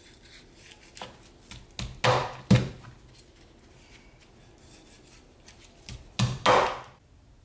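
Chinese cleaver chopping roasted chicken on a wooden cutting board: a cluster of heavy chops about two seconds in, and another near the end.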